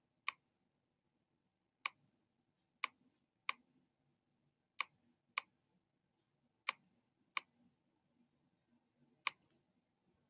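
Short sharp clicks from the pen input as numbers are handwritten on a digital whiteboard, about ten in all and mostly in pairs.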